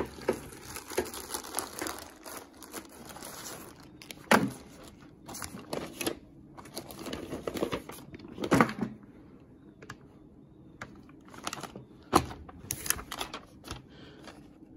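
Crinkling of a plastic bag and rustling of paper as the manuals are handled and the pages unfolded: irregular handling noise with a few louder rustles.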